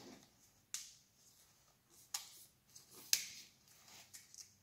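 Sharp plastic clicks and rustling from a Bosch Aerotwin flat wiper blade being handled while its rubber is replaced: three distinct clicks, the loudest about three seconds in, with softer handling noise between.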